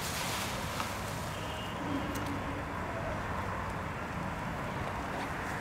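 Steady low rumble of a large hall's ambience. Over it comes faint rustling of clear plastic wrap being pulled off a canvas board, with a few soft knocks.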